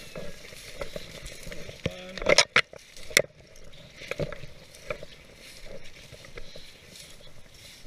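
Footsteps crunching through dry grass and crusted snow while brush scrapes past. A few sharp clacks stand out two to three seconds in.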